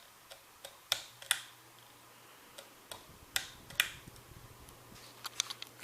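Sharp clicks from a plastic Lasko ceiling fan's speed switch being worked from low to medium: two pairs of clicks and then a quick run of several near the end. Under them the fan's motor gives a faint steady low hum.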